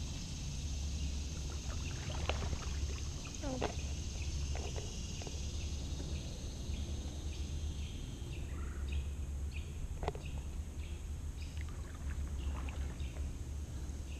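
Kayak paddle working through calm water: soft dips, splashes and drips, coming in quicker runs in the second half.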